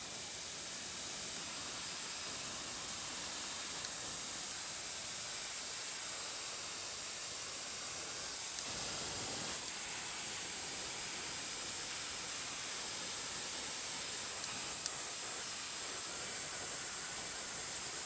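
Electric heat gun running, blowing hot air onto wood: a steady hiss of airflow with a thin high whine.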